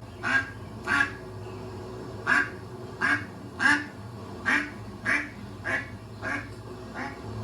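A duck quacking, about ten short quacks in an uneven series with a brief pause about a second in.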